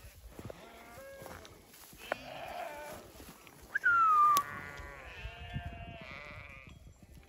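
Sheep bleating in a flock: a few faint calls, then the loudest about four seconds in, a high bleat that falls in pitch and ends in a sharp click, followed by a lower, longer bleat.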